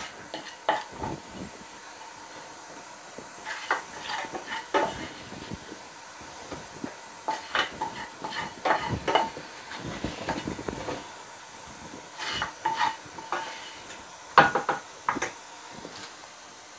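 A metal spoon scraping and tapping against a glass serving dish and a pan as cooked mutton chukka is spooned in and pushed into place: irregular short scrapes and clinks.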